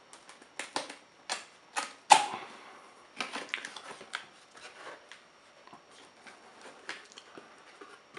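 Cardboard box being opened by hand, its lid pulled up and the flaps folded back: a quick run of sharp cardboard snaps and scrapes, the loudest a little after two seconds in, followed by lighter scattered rustling of the flaps.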